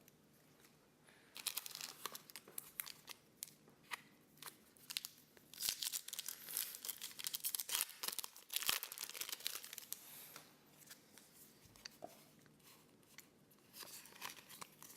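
Foil wrapper of a Pokémon trading-card booster pack being torn open and crinkled: a run of crackling, tearing rustles, loudest in the middle, then a few soft paper-and-card handling sounds.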